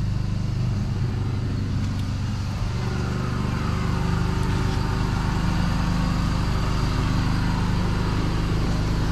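An engine running steadily at an even speed: a constant low hum.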